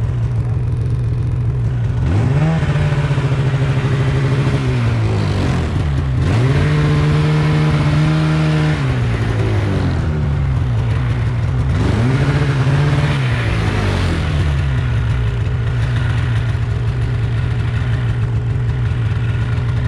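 Snowmobile engine running along a trail, throttled up three times, about 2, 6 and 11 seconds in. Each time the pitch climbs, holds for a couple of seconds and drops back to a steady lower running note.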